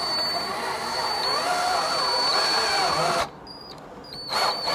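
Cordless drill running under load as it drives screws to fasten a skateboard truck to the deck, its motor pitch rising and falling with the trigger. It stops suddenly about three seconds in, and a couple of short bursts follow near the end.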